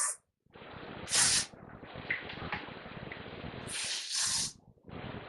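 Aerosol hairspray can sprayed in short bursts: one brief hiss about a second in, then two more in quick succession near the end.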